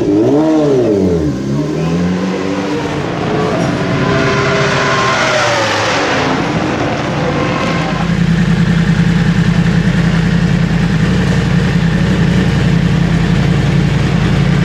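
Honda superbike engine blipped in the pit lane, its revs rising and falling several times. About eight seconds in, a steady low idle of a superbike engine takes over.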